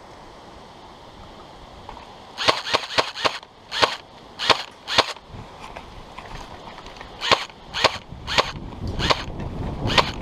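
Airsoft gun firing: a quick string of about five sharp shots, then single shots spaced half a second to a second apart.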